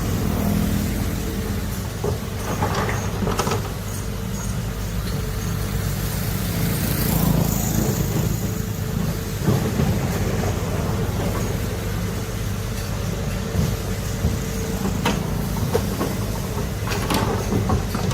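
Heavy diesel machinery engine running steadily, with scattered metallic clanks and knocks.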